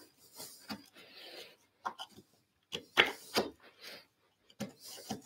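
A chisel worked by hand, without a mallet, in a mortice: steel scraping and clicking against the wood in short, irregular strokes as waste is pared from the walls. The loudest strokes come about three seconds in.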